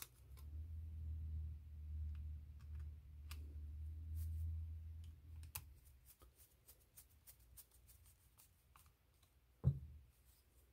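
Light clicks and ticks of a screwdriver and hands working screws into a plastic RC axle housing, over a low rumble for the first five seconds or so. A single loud thump near the end.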